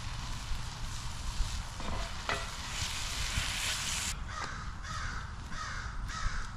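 Steak, red pepper and onion sizzling in a cast iron pan, with two short knocks about two seconds in. After about four seconds the sizzle cuts off sharply and a crow caws several times in quick succession, about every half second.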